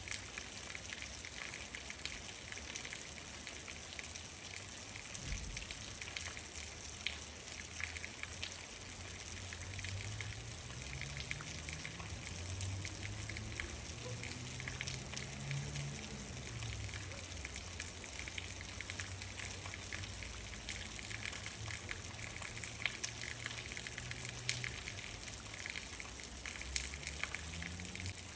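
Steady rain falling, with many small, sharp drop impacts over an even hiss. A low rumble swells and fades underneath from about eight to twenty-five seconds in.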